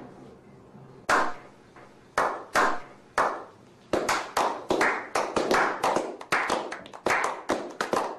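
A slow clap by a small group of men: single hand claps about a second apart at first, quickening from about four seconds in and building into steady applause.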